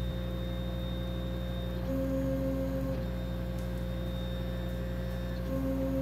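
Aeon Mira 9 laser engraver framing the job: its gantry motors run the head around the outline of the engraving to check placement. A high steady whine runs for about two seconds, a lower tone for about a second, then the high whine again and the lower tone near the end, one side of the rectangle after another, over a steady machine hum.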